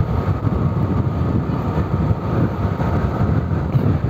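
Motorcycle riding at a steady speed, its engine running under a steady low rumble of wind buffeting the rider's microphone.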